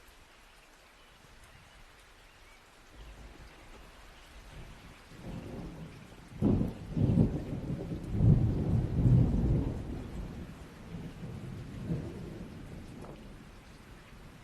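Thunder rolling over steady rain: a rumble builds from a few seconds in, peaks in a series of loud cracks and rumbles around the middle, then dies away while the rain carries on.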